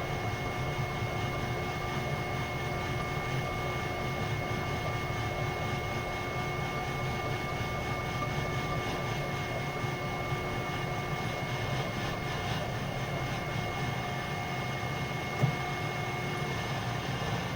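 Weil-McLain boiler running with a steady vibrating noise: a low rumble with several steady higher tones over it. A single sharp click comes about fifteen seconds in.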